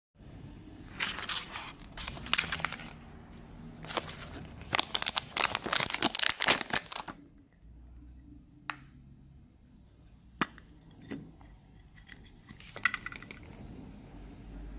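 Plastic packaging crinkling and rustling in repeated stretches as round powder puffs are unpacked. It is followed by a few separate clicks from a clear plastic puff case being handled.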